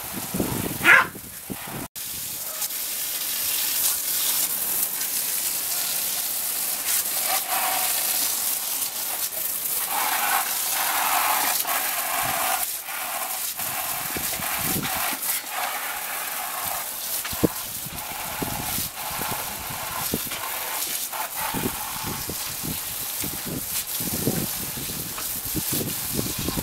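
Garden hose spray nozzle hissing steadily as its jet splashes onto potted plants and concrete, with a Welsh corgi barking at the water, one loud bark about a second in.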